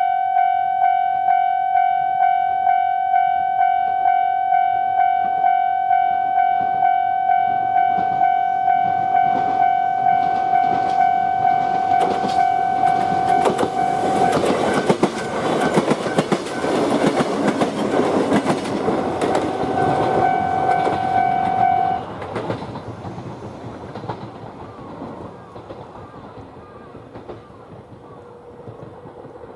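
A Japanese level crossing's warning bell rings in an even, rapid ding-ding, nearly three strikes a second. Starting about a quarter of the way in, a Yoro Railway train approaches and passes with its wheels clattering over the rail joints. The bell stops about three quarters through, and the train's rumble fades away.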